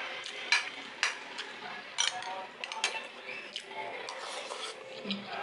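Metal spoon clinking and scraping against a frying pan and bowl while scooping soup and rice: a string of sharp clinks, the loudest about half a second in and at two seconds.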